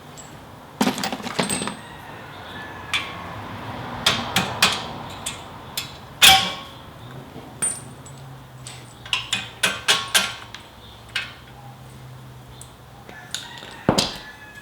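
Metal hand tools and parts clinking and clanking: a run of sharp metallic knocks and rattles, the loudest about six seconds in and another near the end.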